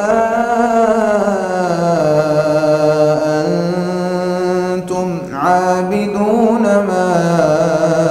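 A man chanting Quran recitation in a slow, melodic style, holding long wavering notes, with a brief breath break about five seconds in.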